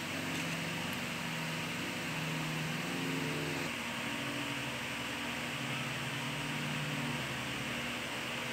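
Steady fan-like background noise, an even hiss with a faint low hum that shifts pitch every second or so.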